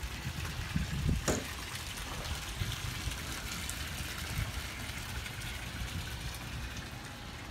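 Outdoor dockside ambience: uneven low wind rumble on the microphone over a steady hiss, with one sharp click about a second in.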